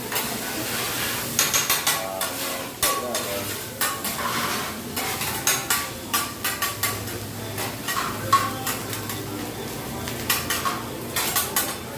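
Food sizzling on a hot cooking surface while metal utensils clatter and scrape against it in quick, irregular clicks.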